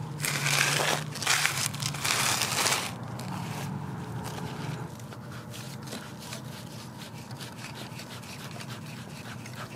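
Crunching and scraping of dirt against a plastic pop-up sprinkler body as it is worked out of the ground: three loud crunches in the first three seconds, then a run of faint scratches and clicks.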